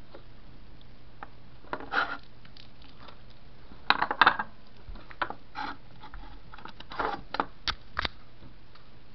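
Handling noise: scattered clicks, taps and rustles of hands working on a tabletop and of the camera being picked up and moved, over a faint steady low hum. The loudest cluster of clicks comes about four seconds in, with more around seven to eight seconds.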